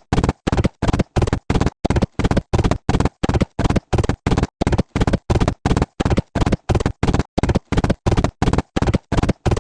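Cartoon galloping sound effect: short hoofbeat hits repeating at an even pace, about three a second, each one cut off sharply into silence.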